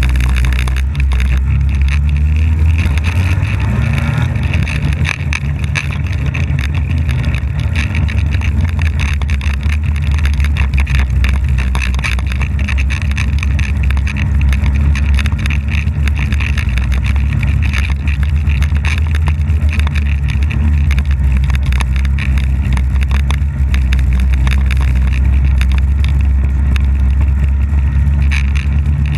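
Polaris snowmobile engine running steadily as the sled is ridden over snow, heard close up from a camera mounted on the sled's hood.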